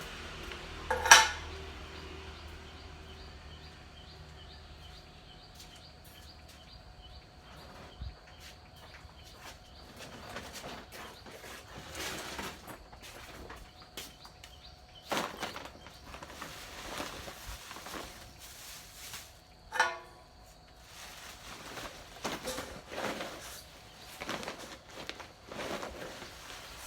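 Scattered metallic clanks and knocks, like metal parts and tools being handled, over a faint steady hum. The loudest is a sharp clank about a second in, with another near the 20-second mark and clusters of lighter knocks in between.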